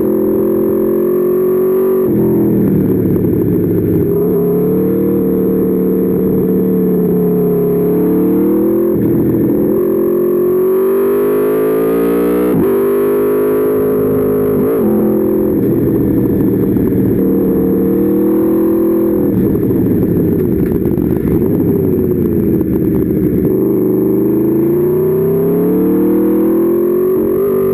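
Aprilia Tuono V4's V4 engine heard onboard, revving up hard and falling back again and again, the pitch dropping sharply at each gear change or throttle closure as the bike accelerates and brakes around a tight circuit.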